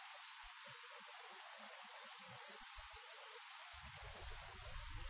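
Faint, steady chorus of insects, a continuous high buzzing. About two-thirds of the way in, a low hum comes in underneath.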